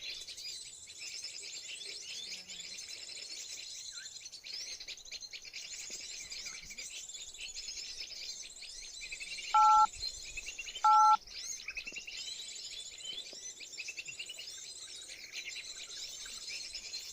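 Dense, continuous high twittering and chirping of many small birds. Near the middle, two short loud beeps a little over a second apart, each made of two tones sounding together, like phone keypad tones.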